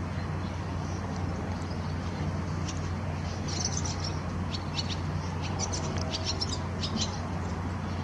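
Barn swallows twittering: a run of quick, short, high chirps from about three seconds in until about seven seconds, over a steady low background hum.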